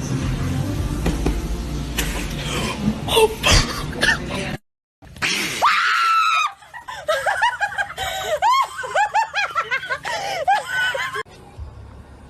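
A noisy stretch with a few sharp sounds, then after a brief cut a long high-pitched scream followed by a rapid string of short high-pitched cries.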